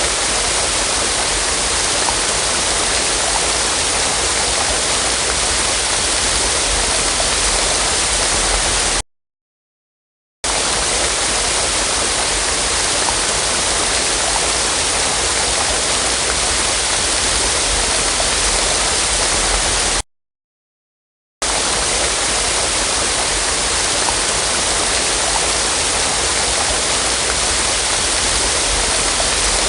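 Waterfall: a steady, loud rush of falling water with a hissy, bright tone. It cuts off cleanly twice, leaving about a second and a half of silence each time before starting again.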